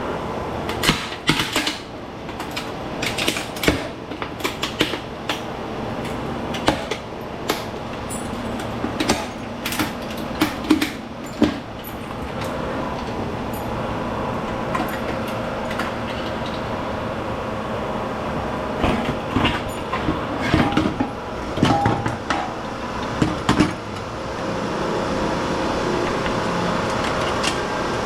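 Scrap metal clanking and banging as it is broken apart and handled, in clusters of sharp knocks during the first twelve seconds and again about twenty seconds in, over a steady machine hum.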